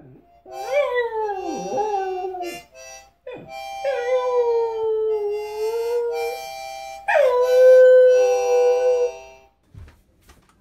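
A harmonica playing held chords while a small dog howls along with it in three long howls. The first howl falls and wavers in pitch; the last starts high, drops, and then holds steady.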